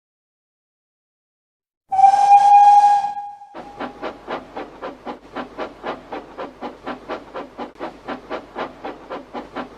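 Steam locomotive whistle blowing once, about two seconds in, followed by a steam engine chuffing steadily at about four puffs a second.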